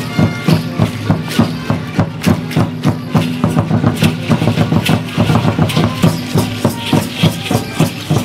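Festival dance music driven by a steady drum beat, about three beats a second, with the dancers' ankle rattles of dried seed pods and metal bells shaking on the steps.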